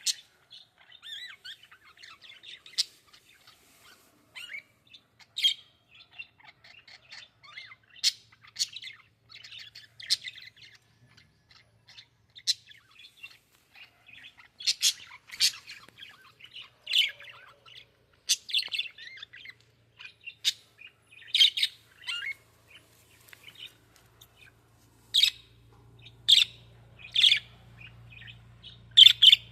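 Birds chirping: a continuous string of short, high chirps, coming faster and louder in the last few seconds. A faint low hum sits under the calls near the end.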